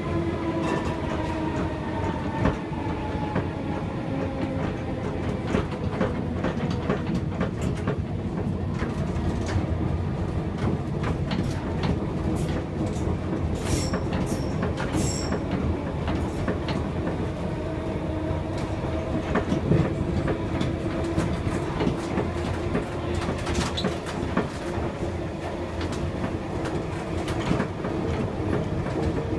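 A 1959 Gotha T57 tram car running along the track, heard from its driver's cab: wheels rumbling, with frequent clicks over the rail joints and a steady motor hum. One tone in the hum falls slowly over the first few seconds, and a few short high squeaks come around the middle.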